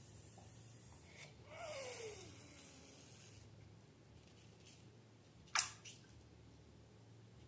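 Quiet handling of balloons and slime: a soft hiss with a short falling squeak about a second and a half in, then a single sharp snap about five and a half seconds in.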